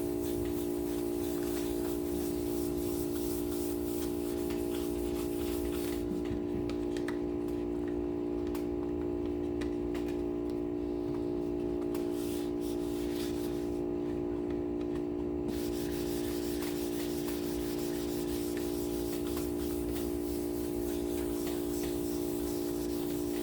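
Wet sandpaper rubbed by hand over a guitar body's finish, a rubbing hiss that stops for several seconds in the middle and then resumes. A steady hum runs underneath.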